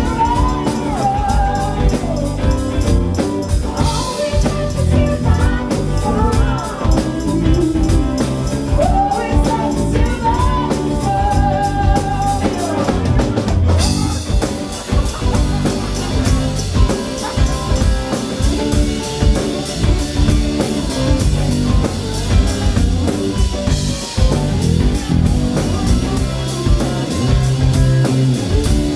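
A live band playing with electric guitars, electric bass and a drum kit, with a woman singing over it through roughly the first half; about halfway through the voice drops out and the band plays on.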